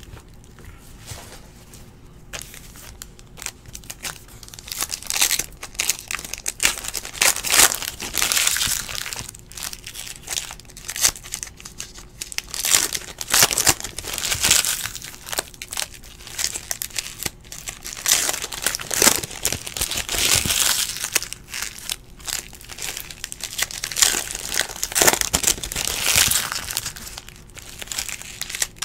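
Foil trading-card pack wrappers crinkling and tearing as packs are ripped open and the cards handled, in irregular rustling bursts.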